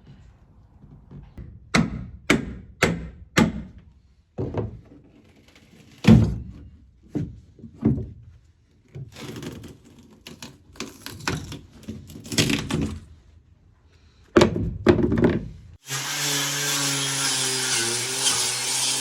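Rotten wood thunking and cracking as it is knocked and broken out of a boat hull, with four quick knocks about two seconds in and a scraping stretch midway. Near the end a power saw starts and runs steadily.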